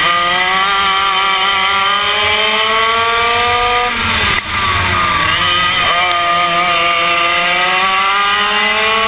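Yamaha KT100 two-stroke kart engine at racing speed, heard onboard. It revs up steadily for about four seconds, drops sharply as the throttle is lifted for a turn, then climbs in pitch again through the second half.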